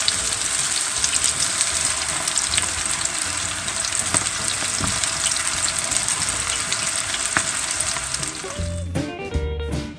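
Fresh cabbage pakora batter deep-frying in hot oil, a steady sizzle with fine crackles. Plucked-string music comes in near the end.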